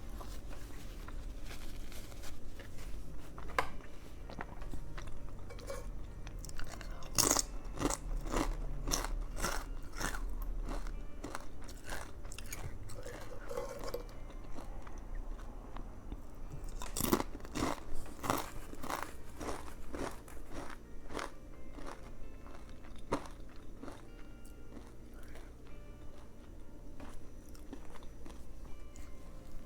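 Close-up biting and crunchy chewing of a Subway veggie patty sandwich: two runs of sharp crunches, about seven seconds in and again about seventeen seconds in, with softer chewing between.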